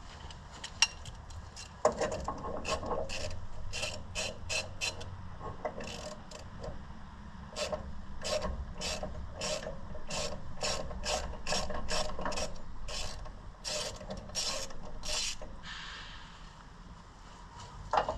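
Hand ratchet wrench clicking through quick repeated strokes, about two a second, as a bolt is backed out, with a few clicks before and a knock near the end.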